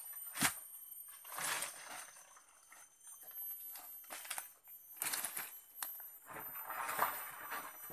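Rustling and crunching of leaves and undergrowth in several bouts as a person moves and works among forest plants, with one sharp crack about half a second in.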